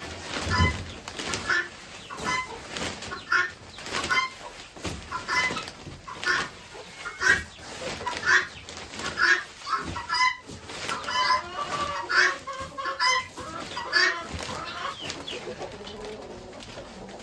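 Chickens clucking, mixed with repeated short rustling and scraping sounds, about one a second.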